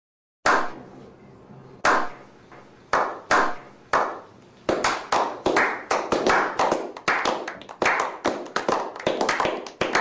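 Hand clapping by a small group of men: a slow clap, single claps about a second apart, that from about halfway speeds up as more hands join, building into a quick round of applause.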